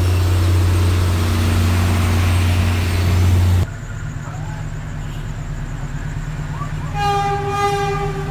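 A steady low engine drone cuts off abruptly about three and a half seconds in. Then, over a quieter rumble, the approaching PNR diesel locomotive DEL 918 sounds one steady horn blast of just over a second near the end.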